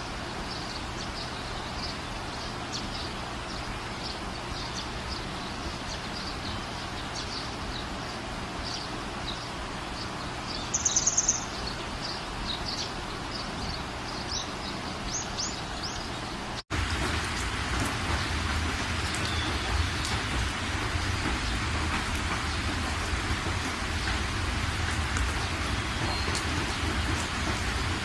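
Night ambience: scattered high chirps of night animals over a steady hiss, with one short, loud, high trill about 11 seconds in. Partway through, the sound cuts off for an instant and gives way to a louder, steady, rain-like hiss with a low rumble.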